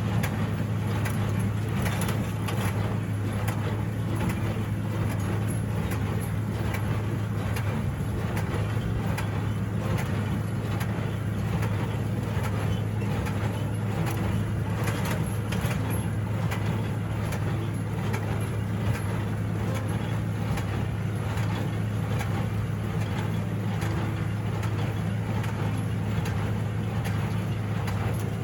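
Farm tractor engine running steadily at an even speed, a constant low drone with faint knocks over it.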